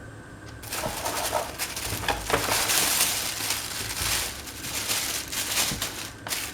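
Plastic packaging being handled and crinkled, a dense run of crackles and rustles that starts about half a second in and stops near the end.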